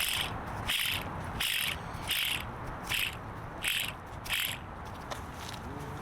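Hand ratchet wrench clicking in short back-and-forth strokes, about one every 0.7 s, that stop about four and a half seconds in.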